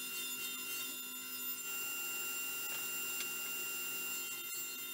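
Table saw running and ripping a pallet-wood board fed with a push block, a steady whine with the rasp of the blade in the wood.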